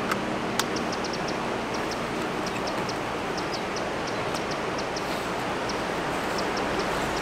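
Soča River flowing: a steady rush of water, with two sharp clicks in the first second and faint high ticks scattered throughout.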